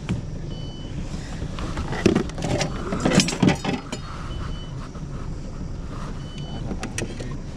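Clattering and knocking of a landing net, fishing gear and a netted walleye against an aluminium boat as the fish is handled, loudest in a burst a couple of seconds in, over a steady low rumble. A short high electronic beep repeats about every two seconds.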